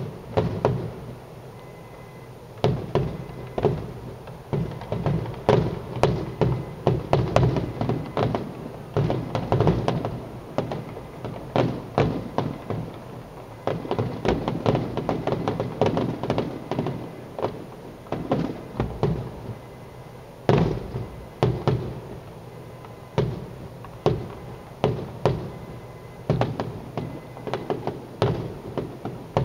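Fireworks display: aerial shells bursting in irregular quick runs of sharp bangs and booms, many overlapping, with short lulls between the runs.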